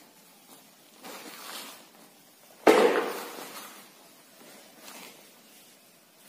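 Soil being scooped and scraped by hand on a heap lined with plastic sheeting: a soft scrape about a second in, then one loud sudden rustling crash about two and a half seconds in that dies away over about a second.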